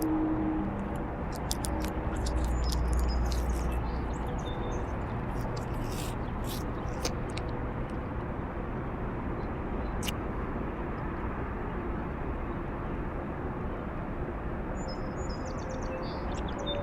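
Steady distant highway traffic noise with birds chirping now and then. Short low hollow tones, like someone blowing across a bottle, sound at the start and again about two seconds in: the repeating mystery noise.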